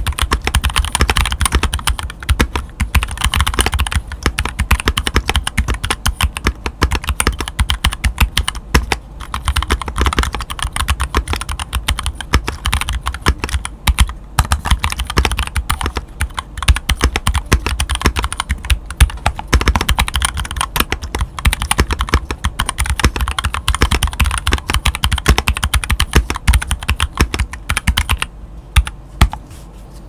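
Modded RK61 mechanical keyboard with stock Tecsee Sapphire V2 tactile switches and Artifact Shield Cherry-profile keycaps, dampened with silicone pour, tape and PE foam mods, typed on steadily. It gives a fast, continuous run of keystroke clacks, with a short lull near the end.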